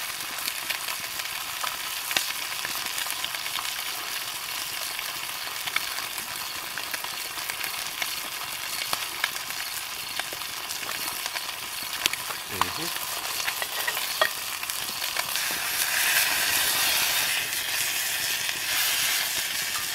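Catfish pieces frying in butter in a pan over a campfire, sizzling steadily with scattered sharp crackles and clicks. The sizzle swells louder for a few seconds near the end.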